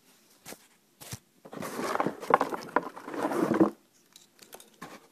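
Close rustling and scraping handling noise lasting about two seconds, with a few light clicks before it.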